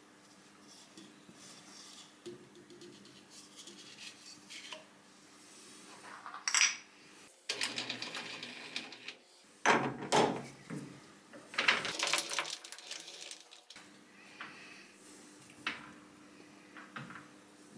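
Hard parts and tooling handled at a stopped lathe: a run of clattering knocks, clinks and rattles in the middle few seconds, with a few sharp loud clinks, over a faint steady hum.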